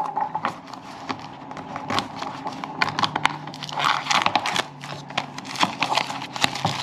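Paper and plastic packaging being handled, rustling and crinkling in irregular bursts with small clicks.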